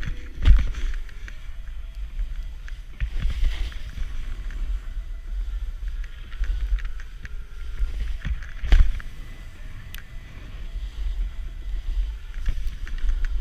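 Snowboard sliding and carving over snow, with wind rumbling on the GoPro's microphone. Two sharp thumps, about half a second in and about nine seconds in, stand out above the steady swishing.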